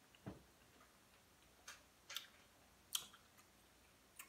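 Faint wet mouth clicks and smacks from chewing food, about five short sharp ones spread out with quiet between.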